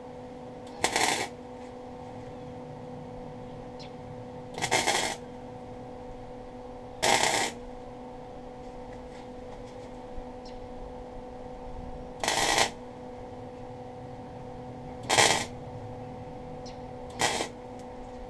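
Wire-feed (MIG) welder laying six short tack welds on a steel-cable part, each a half-second burst of crackling arc, spaced a few seconds apart, over a steady low hum.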